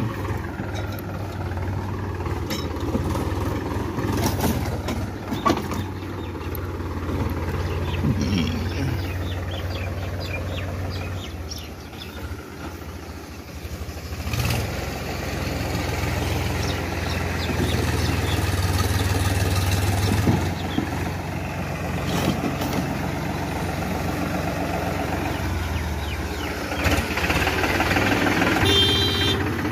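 Powertrac Euro 50 tractor's three-cylinder diesel engine running steadily while the tractor drives, with a brief easing of the engine note about halfway through.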